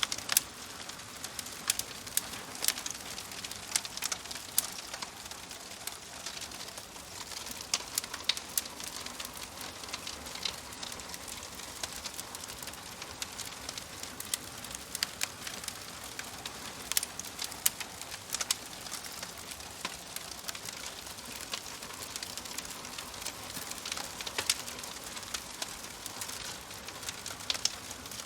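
Wood fire crackling in a fireplace: a steady hiss with frequent sharp pops and snaps at irregular intervals.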